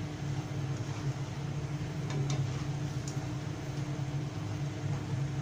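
A steady low hum over the faint hiss and bubbling of squid simmering in its sauce in a frying pan, with a few light clicks about two and three seconds in as a slotted spatula stirs and knocks against the pan.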